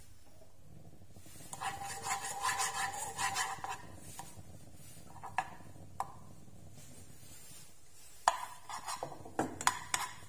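A metal spoon scraping and tapping against a small nonstick saucepan while stirring sugar as it melts into caramel. There is a run of ringing scrapes in the first few seconds, then two sharp clicks, and a cluster of knocks against the pot near the end.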